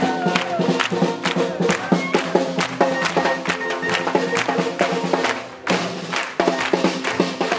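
Upbeat swing jazz music with a steady beat, with people clapping along.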